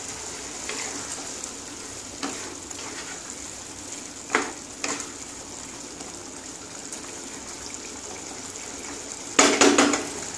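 Prawn and snake gourd curry sizzling as it simmers in a non-stick wok while a wooden spatula stirs it, with a few scrapes and knocks of the spatula on the pan, the loudest cluster near the end.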